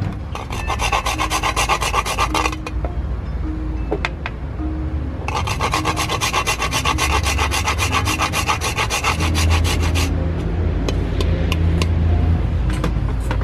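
A spice being grated by hand over a bowl of flour: rapid rasping strokes in two runs, a short one at the start and a longer one of about five seconds from the middle.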